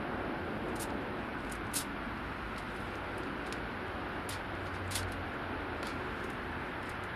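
Knife clicking against a cutting board while slicing grilled peppers into strips: irregular light clicks, the sharpest about two seconds in and about five seconds in, over a steady background hum.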